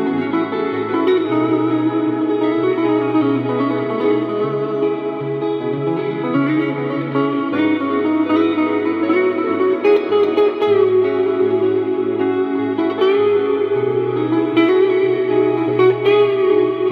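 Stratocaster-style electric guitar playing an ambient loop through effects: layered, sustained notes with reverb over low bass notes that change every few seconds.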